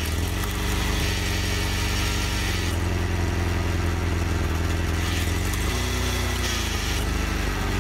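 Engine-driven twin-wedge log splitter running steadily, a continuous mechanical drone; its note shifts a couple of times as the rams cycle.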